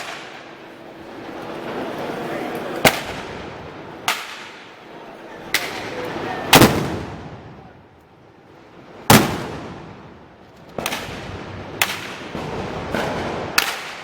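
Loud single gunpowder bangs, about nine at irregular intervals, each with a short echoing tail, the biggest about six and a half and nine seconds in; a crowd murmurs between the shots.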